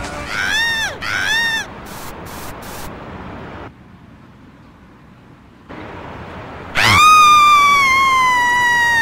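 Two short high cries that rise and fall, then, after a quiet gap, a long, loud, high-pitched scream that slowly falls in pitch, as of someone falling.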